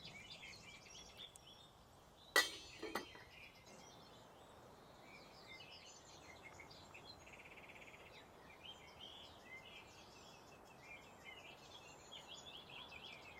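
Birds chirping and singing steadily in the forest, with a short buzzy trill about seven seconds in. A sharp ringing clink, the loudest sound, comes a couple of seconds in, followed by a softer click.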